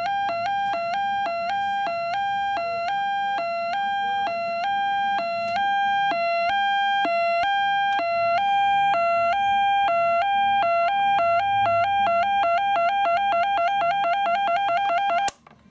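Two-tone electronic police siren built on a Philips EE2003 transistor kit, sounding through the kit's small speaker. It switches back and forth between two close buzzy pitches with a click at each change, and the switching speeds up over time. It cuts off suddenly near the end.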